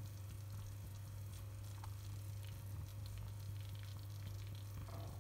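Faint sizzling and crackling from a pot of kuymak (cornmeal, butter and melted cheese) cooking on low heat, over a steady low hum.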